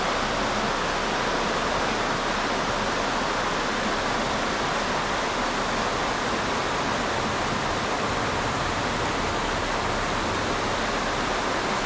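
Steady rush of water spilling over a creek spillway into the run below, an even, unbroken roar.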